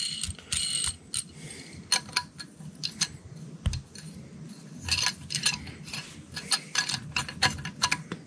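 Light metallic clicks and clinks of a steel eye bolt, washer and nut being handled and threaded by hand onto a turbocharger, coming irregularly with a busier run in the second half.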